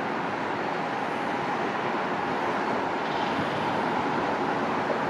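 Distant Airbus A220-300 Pratt & Whitney PW1500G geared turbofans running up for the takeoff roll: a steady rushing noise with a faint steady whine.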